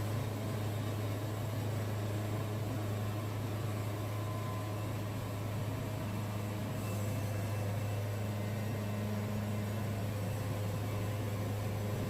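Wood-Mizer band sawmill running steadily through a cut, its engine drone even throughout, with the band blade making a bad racket that the sawyer takes as a sign it is close to breaking.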